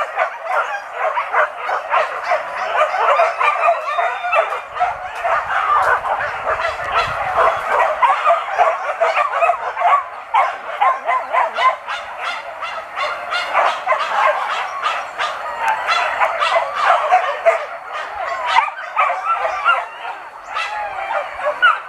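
Hunting dogs yelping and barking without a break, high excited cries overlapping one another.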